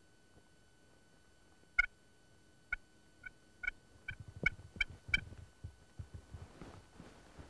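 Wild turkeys calling in a series of about eight short, clear notes that come faster toward the end. Soft rustling sits underneath the later notes.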